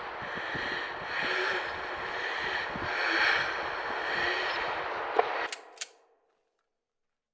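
A steady rushing noise that swells and fades, then two sharp cracks near the end, after which the sound cuts off to silence.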